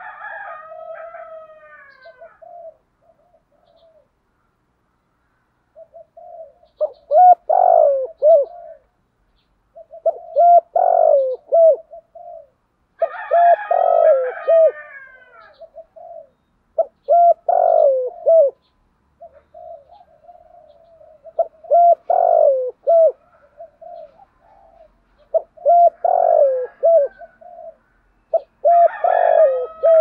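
Spotted dove cooing in the deep voice that Vietnamese keepers call giọng thổ: a repeated phrase of coos, given about seven times, every three to four seconds.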